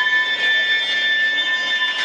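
Passenger railcar's steel wheels and brakes squealing as it rolls slowly past and the train slows to a stop: a steady, high-pitched metal squeal of several tones at once.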